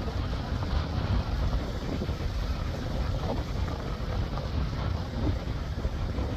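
Wind buffeting the microphone, heard as a steady, gusty low rumble, over the wash of surf breaking on the rocky shore.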